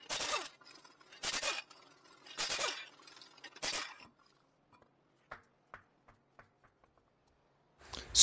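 Impact wrench with a 21 mm socket rattling in four short bursts about a second apart, breaking the car's wheel lug nuts loose one after another, followed by a few faint metallic clicks.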